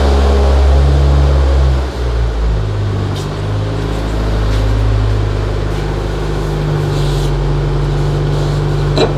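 Steady low mechanical hum with a pitch shift about two seconds in, and a few light clicks.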